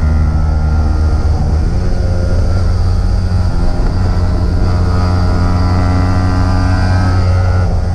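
Single-cylinder 150 cc sport motorcycle engine running at fairly steady revs under way, heard from on board with wind rush, with a short dip in the engine note near the end.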